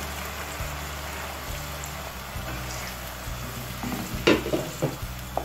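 Blended pepper purée and chopped onion frying in hot oil in a pan with a steady sizzle. Near the end, a wooden spoon stirring knocks and scrapes against the pan a few times.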